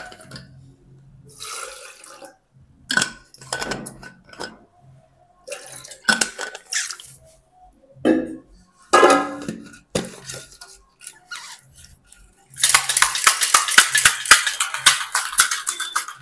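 Pre-workout and creatine powder being mixed with water: scattered clinks and splashes, then about three seconds of loud, fast shaking near the end, several strokes a second.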